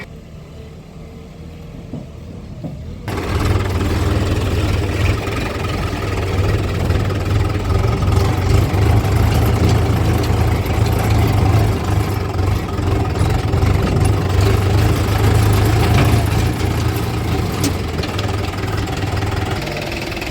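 Heavy diesel engine running. It is muffled for the first three seconds, then turns abruptly loud and steady with a deep hum and clatter.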